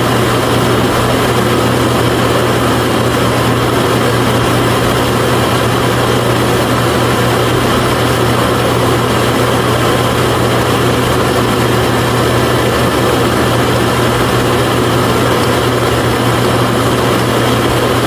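Small motor driving a miniature homemade pulse mill, running at one steady level: a low hum under a dense rattling noise as whole lentils feed through the hopper and are split.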